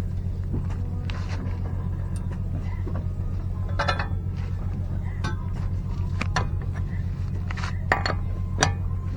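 Scattered sharp metallic clinks and taps of parts and tools being handled during brake pad work, over a steady low hum.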